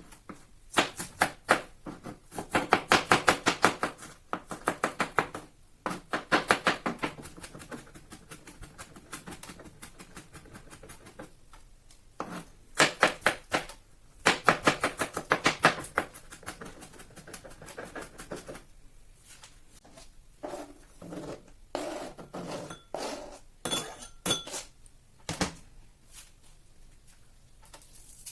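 Rapid clicking strokes of a kitchen utensil as food is prepared, in several bursts of a few seconds each. A few ringing clinks come near the end.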